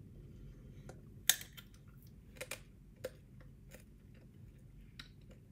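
Hard rock candy being bitten and crunched in the mouth: one sharp crack a little over a second in, then a few scattered crunchy clicks as it is chewed.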